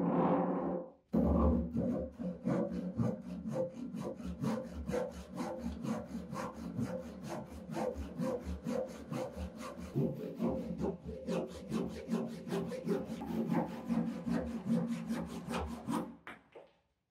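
Restored antique hand saw cutting through a wooden board held in a vise: steady back-and-forth strokes of the teeth rasping through the wood, about three to four strokes a second. The strokes stop shortly before the end as the cut finishes.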